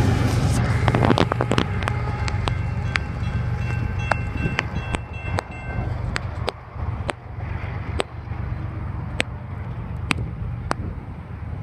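Empty coal train cars rolling past: a steady low rumble of wheels on rail with sharp, irregular clacks, and a thin metallic wheel squeal in the first half. The sound slowly fades as the train moves away.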